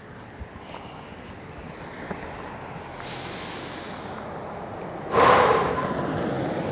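A man breathing close to the microphone: a hissing breath out about three seconds in, then a loud, sudden snort about five seconds in that fades over a second.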